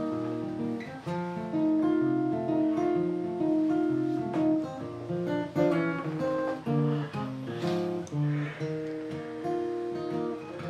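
Instrumental intro of an acoustic guitar song: guitar notes and strummed chords, with no singing.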